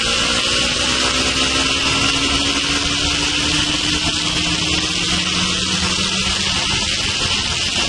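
Motorcycle engine running at road speed under heavy wind rush on the onboard microphone. The engine note climbs slowly as the bike gathers speed.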